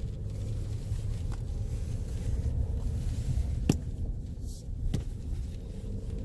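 Steady low rumble of a SsangYong Rexton Sports Khan pickup's diesel engine and tyres, heard inside the cab as it drives slowly on an unpaved gravel road. Two sharp clicks come a little past halfway, about a second apart.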